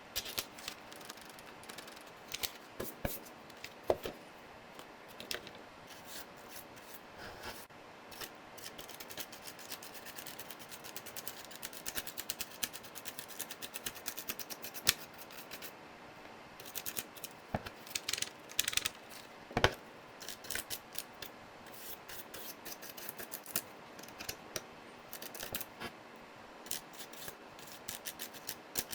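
Keycaps being pulled off and pressed onto the switches of a Royal Kludge RK100 mechanical keyboard. The sound is a run of sharp plastic clicks and snaps with some scraping, coming irregularly and in quick clusters.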